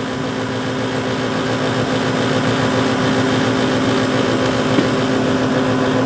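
Standard 80% gas furnace running at full operation: burners firing, the combustion blower motor and the indoor fan all running, giving a steady hum with a low, even tone.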